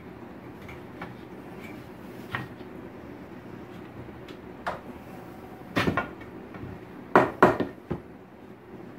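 The wooden legs of a painting easel knocking and clattering against each other and the workbench as they are handled and pulled apart. There are a few light knocks, then louder wooden clacks, the loudest a pair close together about three-quarters of the way in.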